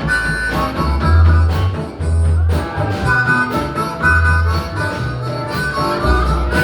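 Live blues band with a harmonica playing long held notes over a walking bass line and drums.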